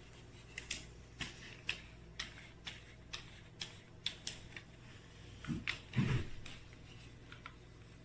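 Small foam paint roller on its wire frame, worked in a ridged plastic tray of tanning dye and rolled over bare skin, giving light clicks about twice a second and a louder rustle and knock about six seconds in.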